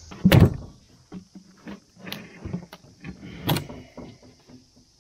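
Heavy metal mower gearbox parts being handled on a wooden truck bed: a loud knock about a third of a second in, then scattered clunks and clicks, with another sharp knock about three and a half seconds in. Crickets chirp steadily and faintly behind.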